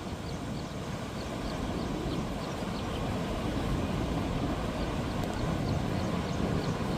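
Floodwater rushing steadily over a washed-out road, a low rushing noise that slowly grows louder, with faint high chirps repeating about three times a second.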